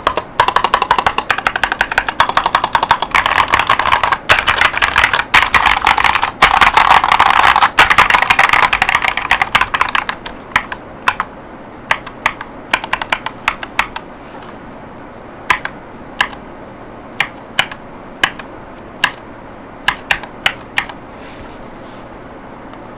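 Typing on an Akko 5108S mechanical keyboard with Chosfox Voyager V2 45 gf tactile switches and PBT OEM-profile keycaps: fast, continuous typing for about ten seconds, then slower, separate keystrokes with gaps between them.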